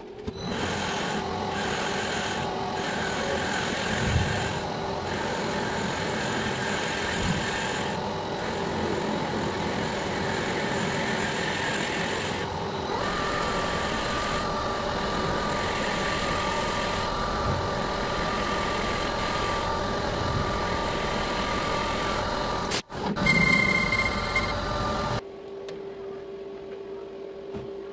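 Metal lathe running with an indexable-insert tool cutting a spinning metal workpiece, turning a cone point on it: a steady mix of machine running and cutting noise. It breaks off briefly near 23 s and stops about 25 s in, leaving a low steady hum.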